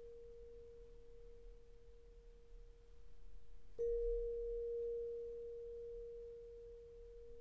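A single pure ringing tone at one steady pitch, struck afresh just under four seconds in and fading slowly between strikes.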